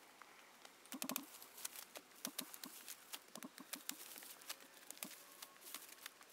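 Maize stalks being cut by hand with a cutting tool: a string of crisp snaps and crunches, with a dense cluster about a second in, over a rustling of leaves.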